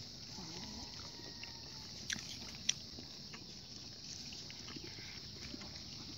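Quiet meal sounds: a few light clicks and taps of eating and tableware, the sharpest about two seconds in and again just under three seconds, over a steady high hiss.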